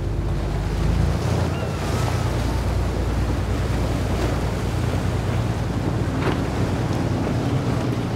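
A small skiff's Yamaha outboard running at speed through choppy inlet water. The steady engine drone mixes with the rush of spray and waves, and wind buffets the microphone.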